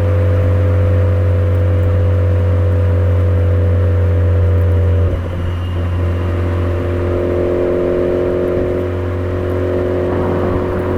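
Suzuki Swift Sport ZC33S's 1.4-litre turbo four-cylinder engine under way through a Fujitsubo aftermarket exhaust, a steady low droning note. About five seconds in the note breaks briefly and settles again with a slightly changed pitch.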